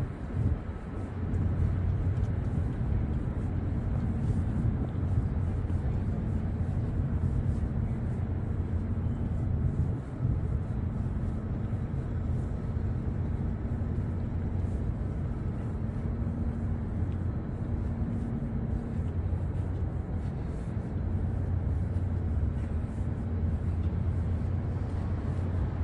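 Steady low droning rumble of city background noise, with a constant mechanical hum underneath.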